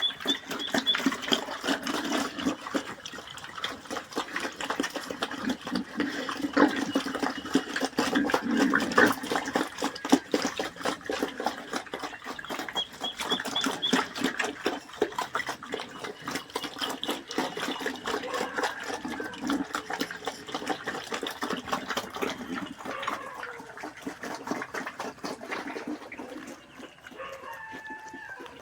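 Pigs on a pig farm grunting and moving about, with a busy run of rapid clicking and snuffling noises. Short runs of high chirping notes sound over it near the start and again about halfway through, and it quietens in the last few seconds.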